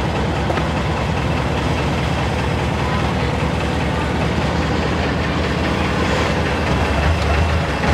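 Long-tail boat engine running steadily, heard from on board the boat; it gets a little louder about seven seconds in.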